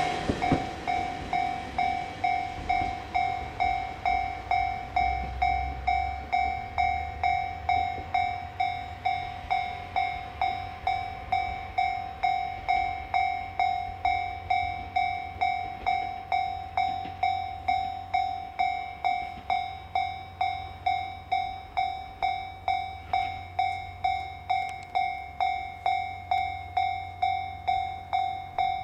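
Japanese level crossing's electronic warning bell ringing steadily, about one and a half strikes a second, signalling that the crossing is closed for a train. A faint low rumble sits under it in the first half.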